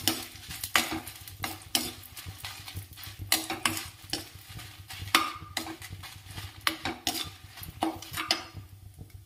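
Spatula stirring dry Byadgi red chillies in a kadai: irregular scrapes and taps of the spatula on the pan, about one or two a second, over a sizzle of the hot coconut oil as the chillies roast.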